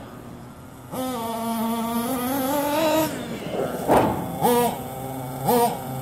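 Small nitro engine of an RC monster truck revving. It jumps to high revs about a second in and holds there for about two seconds, then drops. A short loud thump comes near four seconds, and the engine then idles with two quick throttle blips.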